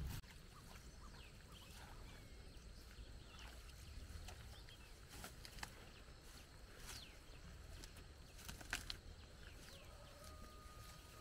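Quiet outdoor ambience: a few faint bird chirps over a low steady background, with scattered light rustles and clicks, and a thin steady note held for about a second near the end.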